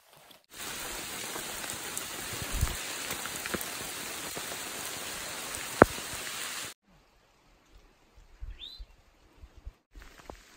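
Steady hiss of rain falling on dense leaves and a wet trail, with one sharp tick in it, cutting off abruptly about two-thirds of the way through. After that it is quiet apart from a single short high chirp.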